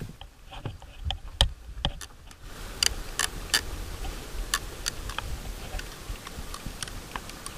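Light, sharp clicks and ticks at irregular intervals from a spinning reel being cranked as line is reeled in.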